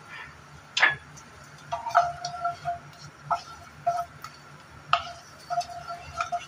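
Wooden spatula tapping and scraping against a nonstick frying pan as it pushes ginger slices about in the oil. There are several irregular knocks, each leaving the metal pan ringing briefly.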